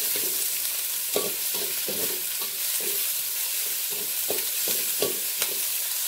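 Bok choy stems stir-frying in an aluminium wok: a steady sizzle, with the metal spatula repeatedly scraping and knocking against the pan, about two strokes a second.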